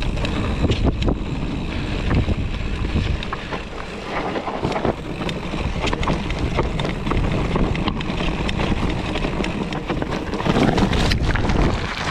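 Wind rushing over a GoPro's microphone on a mountain bike riding downhill on dirt single track, with the tyres running over dirt and frequent knocks and clatter from the bike over bumps.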